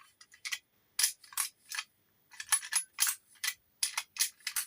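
Steel key blank clicking inside a Chubb detector lever lock as it is worked back and forth against the levers for an impression. It makes a run of irregular, sharp metallic clicks.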